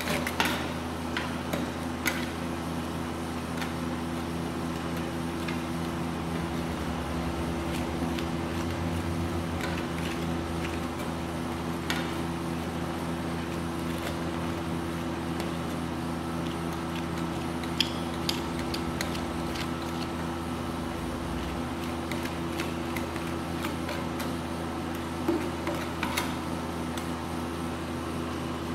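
Steady hum of a rolled-ice-cream cold-plate machine's refrigeration unit, with a few sharp clicks and light scrapes of metal spatulas on the frozen steel plate as the ice cream base is spread flat.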